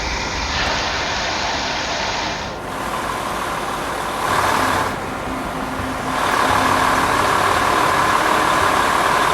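Heavy water spray drenching a shingled roof in a deluge test, a steady rushing roar. The roar changes in tone abruptly a few times.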